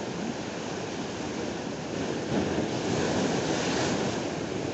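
Ocean surf breaking and washing over shoreline rocks, swelling louder a little over two seconds in as a wave crashes.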